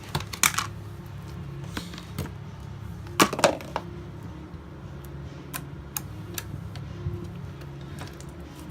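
Slime being squeezed and poked by hand, giving scattered sticky clicks and small pops, the loudest about three seconds in, over a steady low hum.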